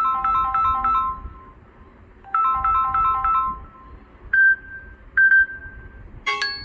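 Samsung Galaxy S10e ringtone playing: a quick melodic run of bright electronic notes, repeated once, then two longer single notes. A different chiming ringtone begins just before the end.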